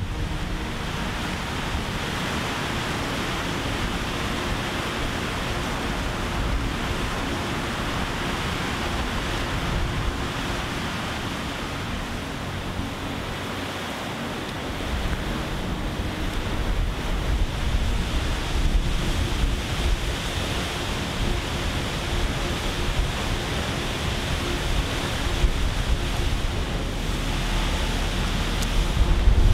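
Steady rushing of white water from river rapids and a waterfall, an even unbroken noise, with wind buffeting the microphone and adding low rumble from about halfway through.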